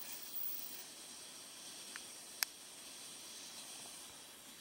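Faint steady hiss, with one sharp click about two and a half seconds in and a fainter one just before it.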